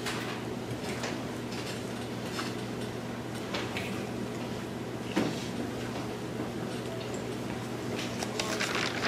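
Classroom room tone during a quiet spell: a steady low hum with scattered small knocks, taps and rustles from the seated class. The sharpest knock comes about five seconds in, and a few more come close together near the end.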